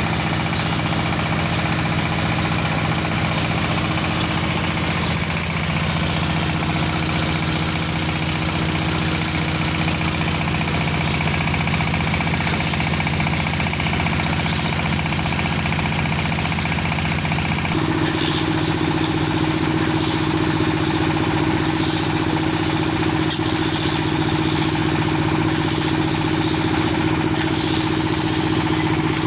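Dowel machine for making wooden broom handles, running steadily with a constant engine-like hum. Its tone shifts abruptly partway through and then holds steady again.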